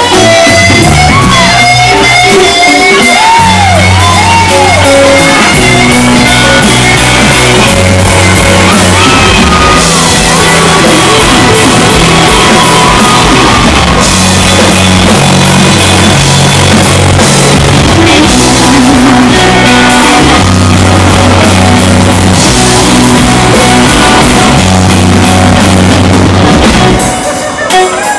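Live blues-rock band playing: electric guitar lead with bent notes over bass guitar and a drum kit, heard in a large room. The band quiets briefly near the end.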